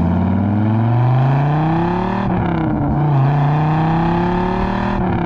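A car engine accelerating hard: its pitch climbs, drops with a gear change a little past two seconds in, then climbs again.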